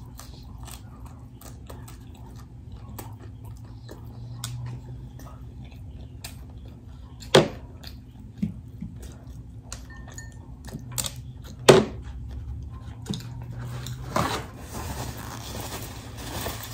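Close-up chewing and crunching of a hard-shell taco, with many small clicks and two sharp clacks, about seven and twelve seconds in. Near the end, rustling of a paper towel as greasy hands are wiped.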